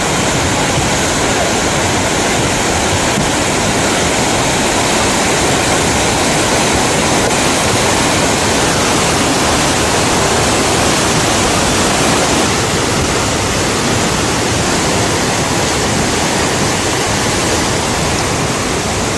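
Flash-flood water rushing down a mountain valley stream in a loud, steady, unbroken rush.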